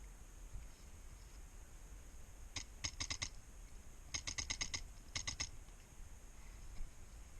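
Airsoft gun firing three short bursts of rapid shots, each burst a string of sharp even clicks at roughly ten a second, the longest in the middle.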